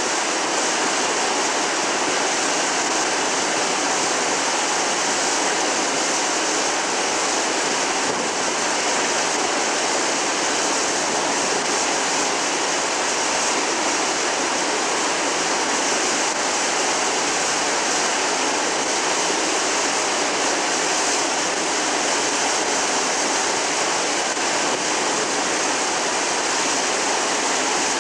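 Water streaming down a swimming-pool slide and splashing into the pool: a steady rushing.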